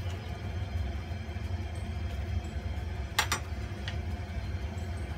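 A metal ladle clinks twice against the steel wok about three seconds in, with a lighter clink just after, over a steady low hum.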